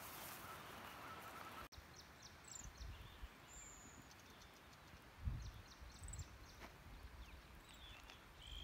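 Faint birds chirping and whistling, with a few soft low thuds.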